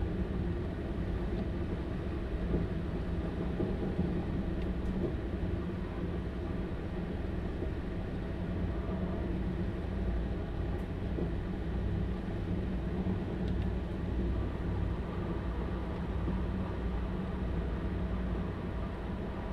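Stadler Class 755 FLIRT bi-mode train running under diesel power, heard from inside beside its engine power pack: a steady running rumble with a faint engine hum.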